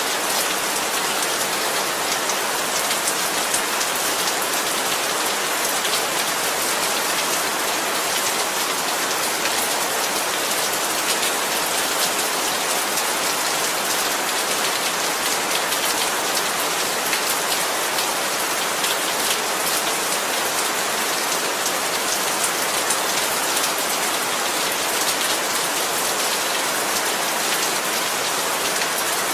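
Heavy rain falling steadily, a dense even hiss of drops hitting the ground and surfaces.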